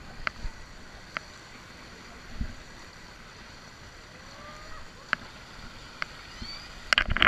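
Swimming-pool water lapping and sloshing close by, with scattered small splashes and drips. A louder burst of splashing comes near the end.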